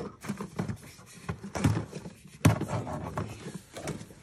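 Hands handling plastic parts and wiring in a car's engine bay: irregular clicks, knocks and rustling, the loudest knock about two and a half seconds in.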